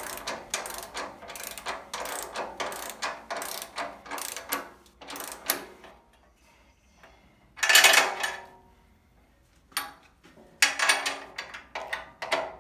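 Socket ratchet wrench clicking rapidly as a bracket bolt is run down and tightened, stopping about six seconds in. A brief, louder clatter comes near eight seconds, then the ratchet clicking starts again near the end as the bolt is brought up to torque.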